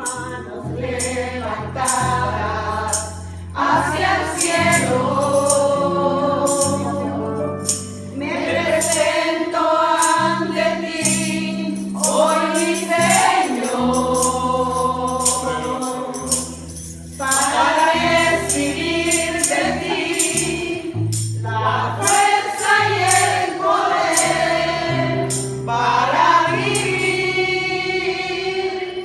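Congregational worship singing: a group of voices singing a gospel song over sustained bass notes, with a tambourine shaken and struck along in rhythm.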